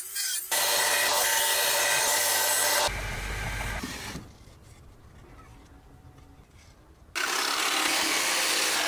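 Workshop tools working a knife blade and a wooden handle blank: a loud, steady rasping noise in two stretches, with a quieter gap of about three seconds between them.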